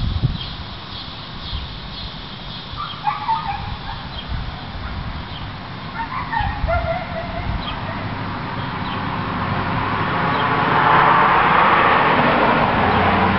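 A few short animal calls over a steady outdoor noise that grows louder about ten seconds in.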